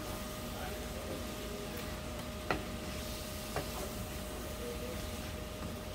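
A wooden spatula stirs cubed potatoes and flat beans in a frying pan over a soft, steady sizzle. It knocks lightly against the pan twice, about two and a half and three and a half seconds in.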